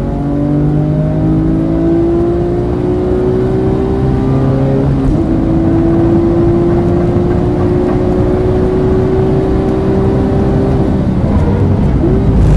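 Porsche 997.2 GT3's 3.8-litre flat-six at full throttle, heard from inside the cabin, its pitch climbing steadily with one upshift about five seconds in. About eleven seconds in it comes off the throttle for hard braking, with quick throttle blips on the downshifts near the end.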